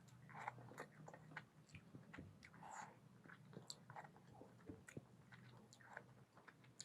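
A person chewing a mouthful of mutton curry and rice, with soft wet mouth smacks and many small irregular clicks.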